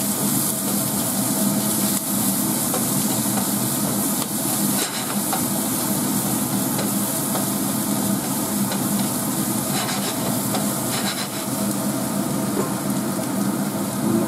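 Chopped onion, curry leaves and whole spices sizzling steadily in hot oil in a stainless steel frying pan as a tempering, stirred with a wooden spatula that scrapes the pan now and then.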